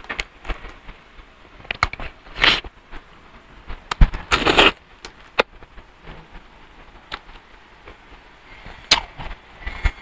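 Crunchy bites into a crisp fried spring roll (lumpia) and chewing, heard as scattered sharp clicks and short crackly bursts, loudest at a bite about four seconds in.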